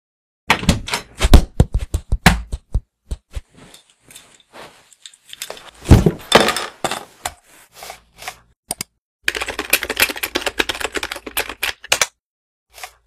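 Computer keyboard typing: runs of quick key clicks, with a dull thud about six seconds in and a fast unbroken run of keystrokes in the last few seconds.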